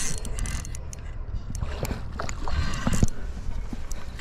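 Wind buffeting the microphone in a steady low rumble, with scattered clicks and knocks and a louder knock about three seconds in.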